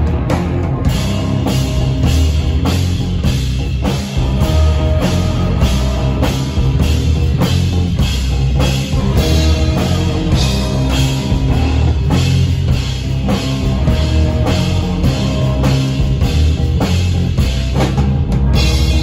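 Live rock band playing an instrumental passage: electric guitar, acoustic-bodied guitar and bass guitar over a drum kit keeping a steady beat, loud and heavy in the low end.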